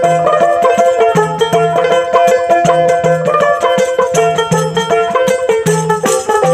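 Instrumental interlude of Baul folk music: a tambourine struck and shaken in a steady rhythm under a melody of held notes.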